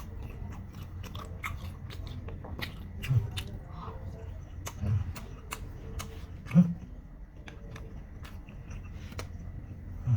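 Fried chicken back being bitten and chewed, with many sharp crisp crunches and a few heavier low thuds, the loudest about two-thirds of the way through.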